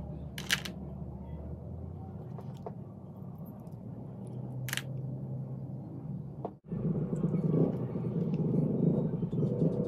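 Close-miked eating of sikad-sikad (jumping-shell sea snails): handling the small shells at the mouth to get the meat out, with two sharp clicks, then denser chewing and mouth sounds in the second half, all over a steady low rumble.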